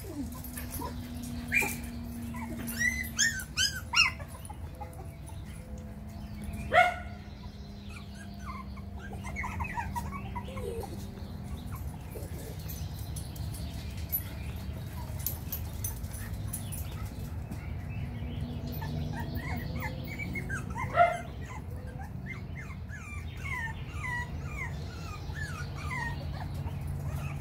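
Four-week-old miniature schnauzer puppies whimpering and yipping in short high-pitched squeals that come in clusters, with a few sharper, louder yips. A steady low hum runs underneath.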